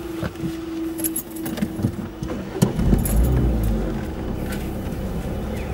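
Level crossing barriers being raised by their electric motors: a steady whine that stops about two and a half seconds in, with the metal barrier skirts rattling and clanking as the booms lift. From about three seconds in, a low engine rumble from waiting traffic moving off.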